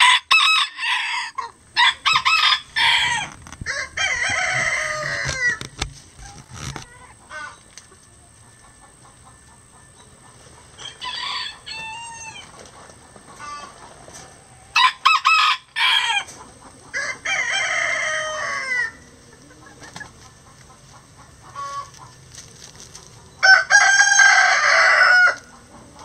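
Roosters crowing one after another, about seven crows with pauses between, one fainter crow near the middle and the loudest near the end. A few short clucks come between the crows.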